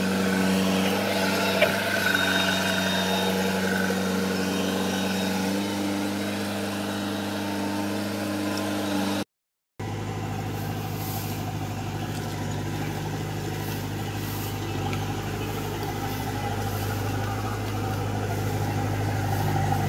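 Kubota DC-105X combine harvester's diesel engine running steadily, with a deep even hum, as the machine travels on its tracks. The sound breaks off for a moment about nine seconds in and resumes at a slightly lower pitch.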